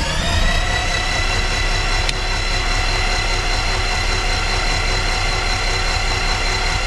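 Electric starter motoring a Titan IO-340 aircraft engine with the spark plugs removed: a steady whine that spins up at the start and holds as the propeller turns over without firing, to build oil pressure before the first start.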